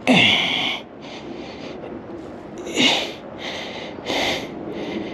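A person breathing hard close to the microphone, about four short, forceful breaths with the first the loudest: the strain of playing a hooked fish on a bent baitcasting rod.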